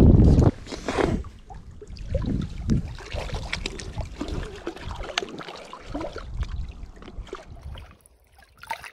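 Wind rumbling on the microphone, cutting off about half a second in; then irregular splashes, rustles and knocks as a hooked brown trout is brought to the bank and landed in a landing net.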